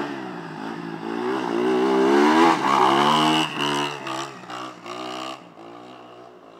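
Quad ATV engines revving up and down under throttle as they climb and drop over dirt berms. They grow loudest about halfway through, then fade away into the distance.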